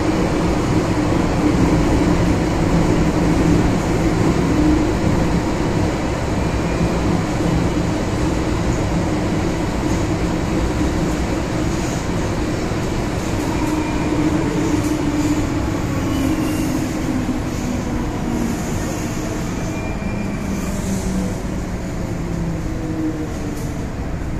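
MTR M-Train metro train running, a steady hum of motors and wheels on track, with its tones sinking lower in the second half as the train slows.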